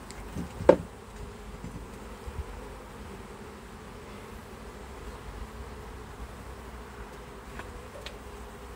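Honeybees buzzing steadily around an open nuc hive. Near the start come a few short clicks, one of them sharp, as the hive tool prises a wooden frame loose.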